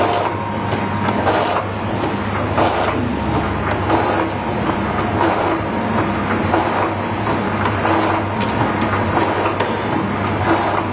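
Vertical automatic pouch packaging machines running, with a steady low hum and a rustling clatter that repeats a little over once a second as each machine cycles through a bag.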